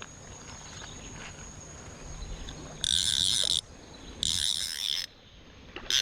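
Click-and-pawl fly reel ratcheting in three short buzzing bursts while a hooked lampam is played.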